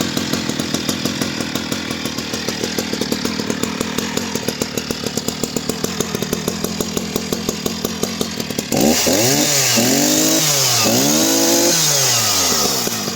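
Husqvarna 480CD vintage 77cc two-stroke chainsaw idling with a fast, even pulse. About two-thirds of the way through it is revved up and back down several times in quick succession, then drops back toward idle near the end.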